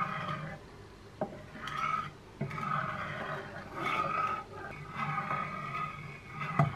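Spatula scraping across the bottom of a nonstick pan while stirring thickening rice flour batter, in repeated strokes about once a second, with two sharp knocks of the spatula against the pan, one a second in and one near the end.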